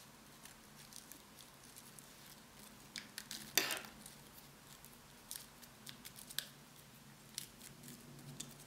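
Faint, scattered scrapes and taps of a bone folder pressing paper pieces down onto hot glue, with one louder brief paper rustle about three and a half seconds in.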